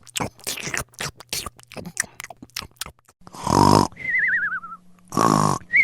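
Cartoon sound effects: a quick run of clicks, then a comic snore heard twice, each a loud rasping intake followed by a wobbling whistle that falls in pitch.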